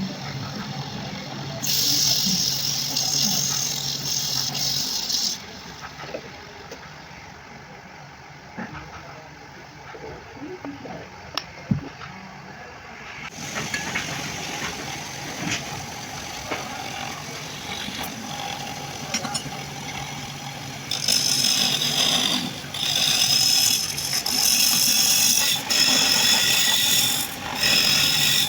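Woodworking by hand. For a few seconds early on there is a steady hum with loud hiss, then a quieter stretch of light taps and clicks. From about three-quarters of the way through come repeated loud rasping strokes on wood, each broken off and started again.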